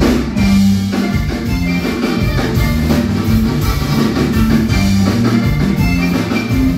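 A live band playing through PA speakers: continuous music with drums and a repeating bass line.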